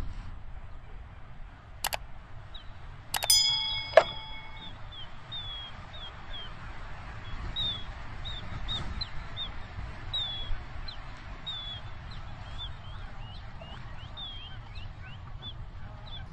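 A large flock of birds flying overhead, calling again and again with short high calls, over a low wind rumble. In the first four seconds come three sharp clicks and a loud, ringing bell-like ding.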